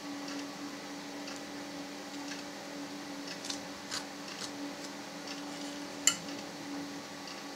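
A metal spoon clinking and scraping against a stainless-steel saucepan while scooping thick sugar glaze, with one sharper clink about six seconds in, over a steady low hum.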